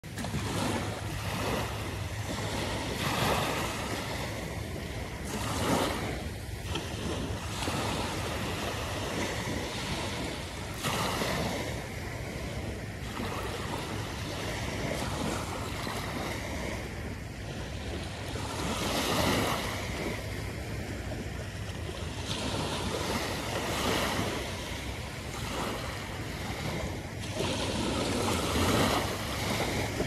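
Small waves breaking gently at the shoreline and washing up over shell-strewn sand in foam, the wash swelling every few seconds.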